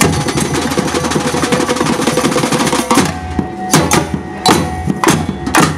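Samba percussion band of bass drums, snare drums and small hand-held frame drums playing a break: about three seconds of fast rolling, then a handful of sharp ensemble hits about half a second apart.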